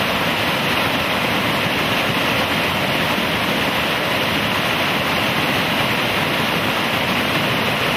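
Fast river rapids rushing over rocks: a steady, unbroken wash of water noise.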